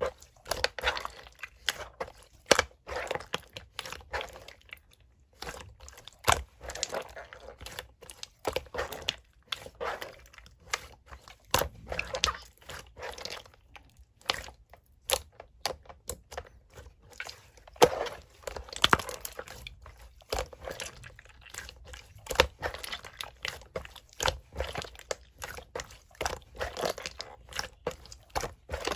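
Clear slime being squished and stretched by hand: irregular sticky squelches and sharp popping clicks as air pockets in the slime burst.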